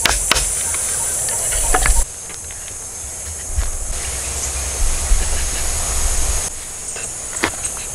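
A steady, high-pitched insect drone with a few sharp knocks of a hatchet striking wooden poles: a quick run of strikes at the start, then single knocks about two, three and a half, and seven and a half seconds in.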